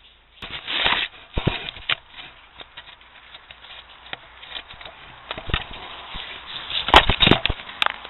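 Rustling, scraping and sharp knocks right against a trail camera's microphone as the camera is bumped and moved. The loudest clusters of knocks come about a second in and again near the end.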